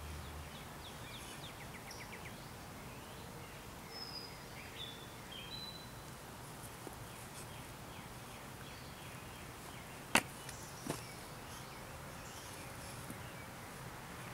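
Quiet outdoor background with a few faint, high, short chirps, then a sharp click about ten seconds in and a smaller one just after.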